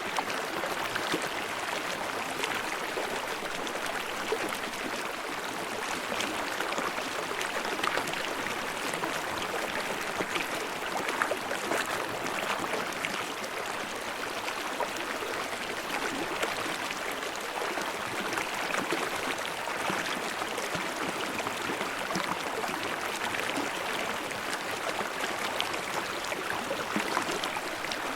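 Mountain stream babbling and splashing over small falls, a steady rushing water sound with constant fine gurgles and splashes.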